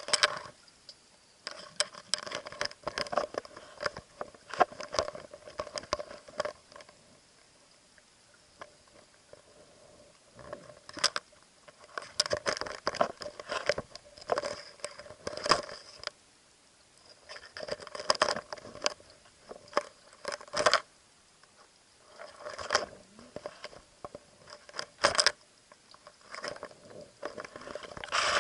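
Muffled clicking and rattling picked up through an underwater camera's housing. It comes in spurts of a second or two, with short quiet gaps between them.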